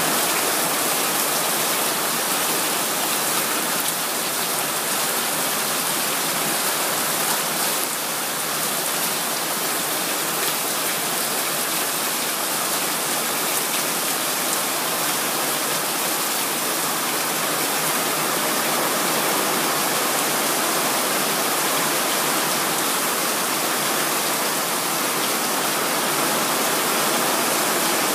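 Heavy tropical downpour: a steady, even rush of rain.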